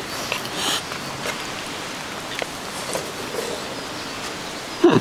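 Short wet slurping of pasta near the start, then a steady hiss of rain with a few faint clicks.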